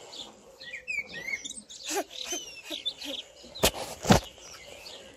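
Songbirds chirping and singing, with many short whistled notes. Two sharp knocks about half a second apart come just past the middle and are the loudest sounds.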